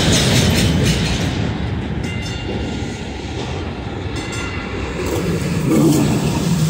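Dallas DART electric light rail train approaching and rolling past at close range, its wheels running over the rails with a steady rumble that grows into a rhythmic rumbling near the end as the cars pass.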